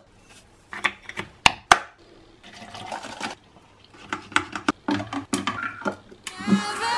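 Iced coffee being made in a reusable plastic tumbler: sharp clicks and taps of the hard plastic cup and its lid, liquid poured in for about a second in the middle, then a run of quicker clicks as the straw is pushed through the lid. Music starts near the end.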